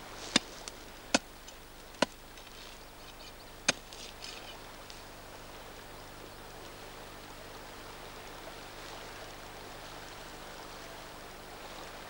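Four sharp clicks and cracks in the first four seconds as a steel Kolesov planting bar is driven into stony, burnt forest ground, then a steady hiss.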